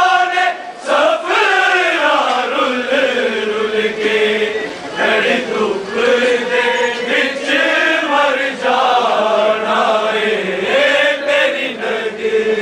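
A male voice chanting a noha, a Shia mourning lament, in long held notes that slide slowly up and down with hardly a pause.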